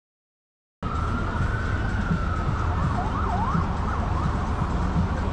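Emergency vehicle siren wailing over a steady low rumble of city traffic, switching for a moment to a faster yelp in the middle before wailing slowly again. The sound cuts in suddenly about a second in, after silence.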